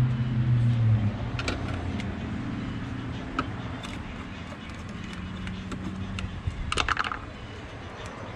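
Scattered light clicks and taps of hand tools on the plastic air box and intake tube as they are unscrewed and unclipped, with a short rattling run of clicks about seven seconds in. A steady low hum fades out in the first second.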